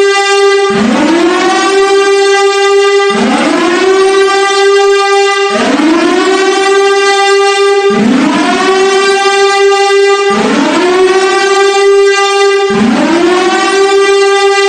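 Emergency alert siren: a rising wail that sweeps quickly up to a steady pitch and holds it for about two seconds, then drops and rises again, repeating about every two and a half seconds.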